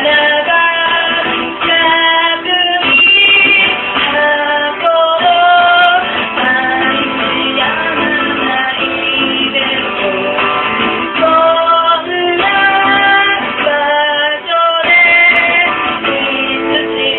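A woman singing a song live, accompanying herself on acoustic guitar.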